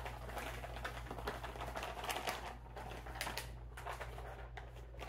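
Zipped MRE drink pouch being shaken by hand to mix water and protein powder, its packaging crinkling in rapid, irregular crackles.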